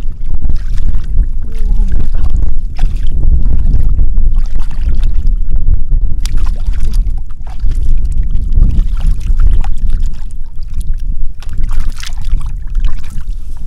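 Hands sloshing and digging in shallow muddy water, with scattered splashes and squelches, over a heavy low rumble of wind on the microphone.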